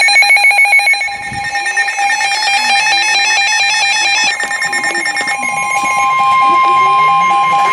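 Several NOAA weather radios going off at once for a Special Marine Warning. Warbling data bursts of the SAME alert header overlap from radios slightly out of step, with rapid electronic beeping in the first second. About a second in, the steady 1050 Hz warning alert tone starts and holds.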